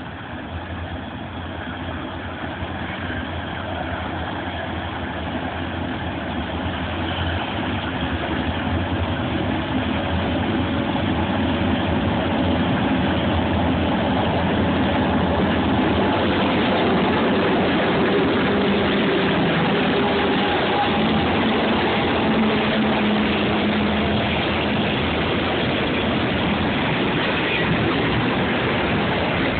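Freight train hauled by four diesel locomotives approaching and running past. It grows louder over the first ten or twelve seconds, then holds as a loud, steady engine hum and rumble.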